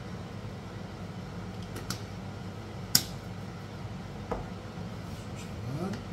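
Glass spice jars handled over a wooden chopping board: small clicks and knocks, the sharpest about three seconds in, over a steady low hum. Near the end comes a brief rising scrape as a utensil goes into the pot.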